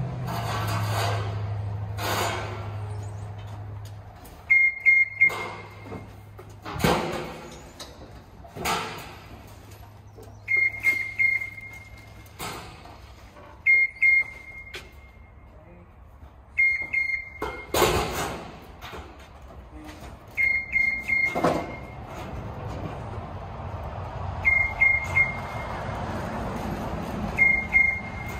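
A scissor lift's alarm beeps in short bursts of a few high pips every few seconds, among loud bangs and clatters of steel wall panels being handled. A low engine hum fades out in the first few seconds.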